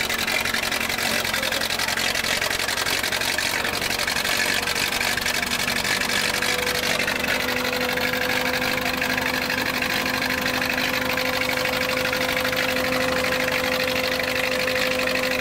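Stationary engine running steadily, driving a belt-driven threshing machine as sheaves of grain are fed into it. The hum holds even, with a tone that rises slightly in pitch partway through.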